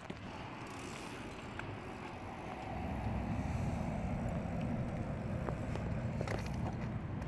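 Low rumble of wind on the microphone and tyres rolling over asphalt as the camera moves alongside a BMX bike, growing louder about three seconds in, with a few faint clicks.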